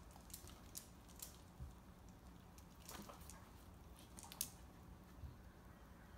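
Faint, scattered clicks and taps from a pit bull and a puppy scuffling on a tile floor, their claws ticking on the tiles, with the loudest tap about four seconds in.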